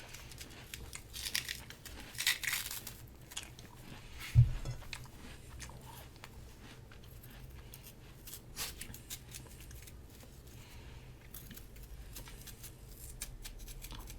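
Crisp crunching and chewing of juicy Korean pear slices close to the microphone, with a dull thump about four seconds in.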